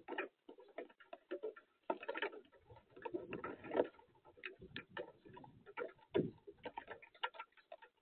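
Irregular ticking and tapping of raindrops dripping onto the wooden feeder box and into the bird bath, picked up by the camera's small microphone.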